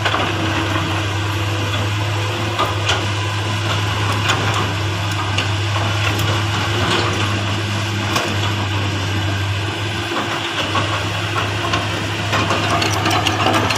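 Komatsu hydraulic excavator's diesel engine running steadily as it works, a continuous low hum with a few faint clanks.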